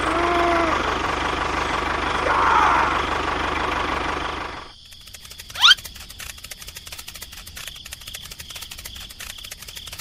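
A mini tractor engine running steadily for about four and a half seconds, then cutting off abruptly. After the cut comes a quieter, fast, even clicking, with one sharp rising squeak about a second later.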